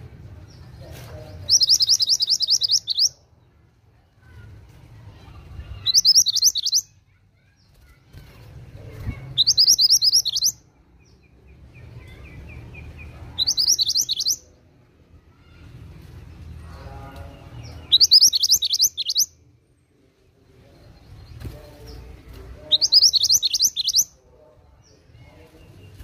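Minivet (mantenan) singing: six short bursts of rapid, high, falling notes, each lasting about a second and coming roughly every four seconds, with fainter bird calls in between.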